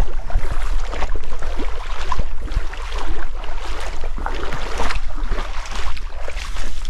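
Footsteps splashing through a shallow stream and crunching over dry leaf litter, in irregular steps, with wind rumbling on the microphone.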